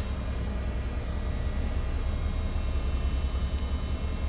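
Steady low machinery drone, deep and even, with a few faint steady high tones over it.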